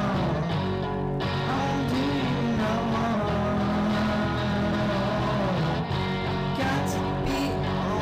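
Rock song with guitar and a singing voice, playing steadily.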